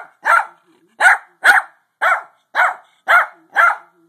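Small dog barking repeatedly: eight short, sharp barks, about two a second, loosely in pairs.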